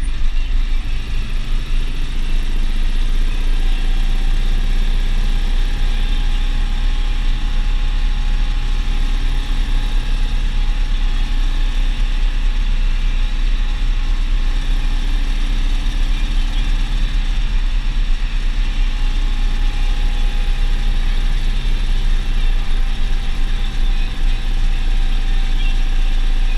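Deutz DX 4.70 tractor's air-cooled diesel engine running steadily while driving, heard loud from inside the cab. A faint steady whine rides above it from about three and a half seconds in.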